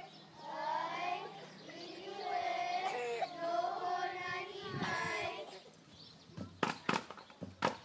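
Voices singing a drawn-out, wavering hula chant. About six and a half seconds in it gives way to a few sharp percussive strikes.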